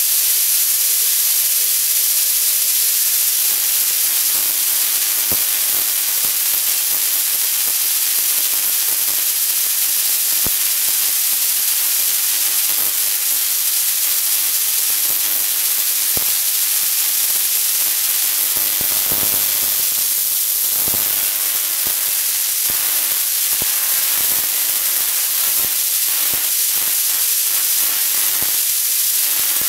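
Homemade spark-gap Tesla coil running, a steady loud hissing buzz of its spark discharge. Scattered sharp crackles run through it and come thicker in the second half.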